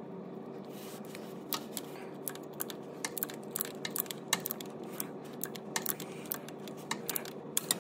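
Ratchet wrench clicking in quick irregular strokes as it turns the differential fill plug back in, over a steady low hum.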